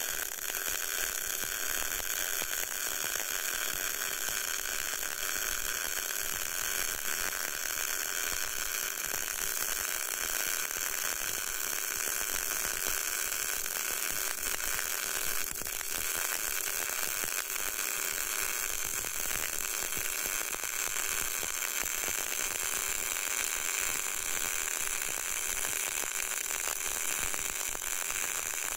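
CO2 semi-automatic (MAG) welding arc at about 140 amps, laying a vertical fillet weld on 6 mm steel plate with solid wire. It makes a steady, even crackling sizzle.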